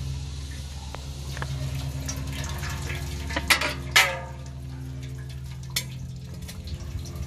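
Sharp clicks and a short clatter from a radiator's plastic drain plug being worked loose, two loud ones about halfway through and another a couple of seconds later, over the steady low hum of an idling engine.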